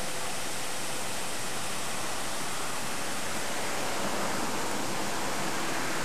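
Steady, even rush of splashing water from park fountains.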